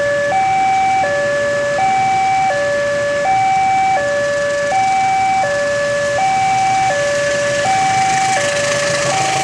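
Railway level-crossing warning alarm sounding an electronic two-tone signal that alternates evenly between a higher and a lower tone, each held about three-quarters of a second. Near the end, the noise of the arriving train builds beneath it.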